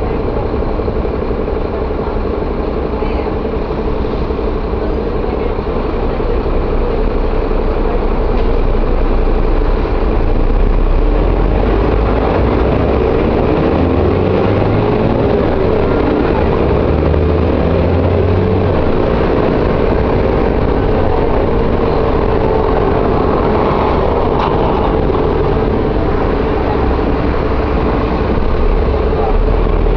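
Mercedes-Benz O-500M bus engine running steadily, getting a little louder about eight to ten seconds in.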